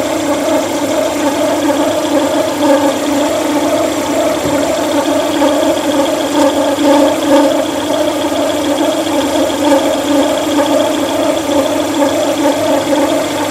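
Lada Vesta engine idling with a steady whistle from the engine bay. The owner traces the whistle to a worn water pump bearing with about a millimetre of play.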